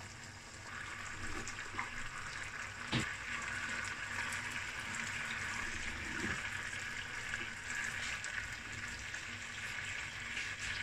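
Chicken and dried mushrooms in their sauce sizzling steadily in the pan, with a single sharp knock about three seconds in.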